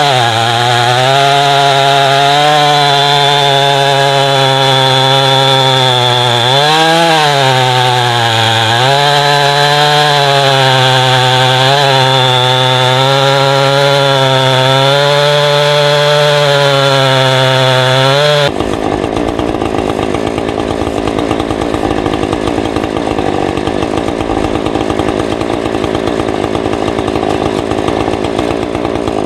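Small gasoline engine of a portable sawmill running hard while milling a log, its pitch wavering and sagging briefly about seven seconds in as it takes load. About eighteen seconds in the sound changes abruptly to a rougher, noisier running sound.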